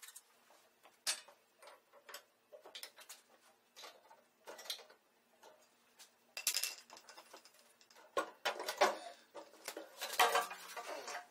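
Scattered metallic clinks and clatter of hand tools and engine parts as the Onan twin-cylinder engine is worked loose from the welder's frame. Near the end come heavier knocks as the engine is lifted out.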